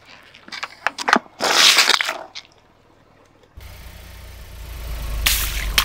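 A car tyre rolling over a plastic bottle of paint: crackling, then a loud squishing spurt about a second and a half in. After a sudden cut near the middle, a car engine's low steady rumble comes in, with sharp crackles near the end.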